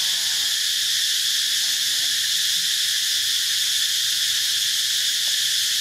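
A steady, dense chorus of forest insects: an unbroken high-pitched buzzing drone that never changes in level.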